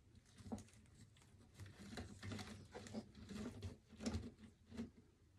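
Faint rustling and light irregular ticks of flower stems and foliage being pushed and settled into a chicken-wire floral display.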